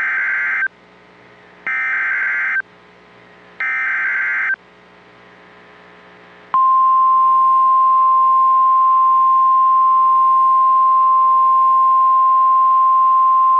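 NOAA Weather Radio emergency alert: three short bursts of buzzing SAME digital header data about two seconds apart. After a pause of about two seconds, the steady 1050 Hz warning alarm tone starts abruptly and holds. Together they signal that a warning message follows.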